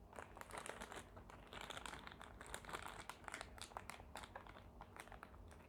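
Clear plastic packaging bag crinkling in faint, irregular crackles as it is handled and opened.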